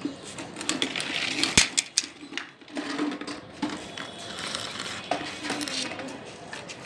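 Hard plastic toy cars clattering and tumbling on a concrete floor, a run of irregular small clicks and rattles with one sharp knock about a second and a half in.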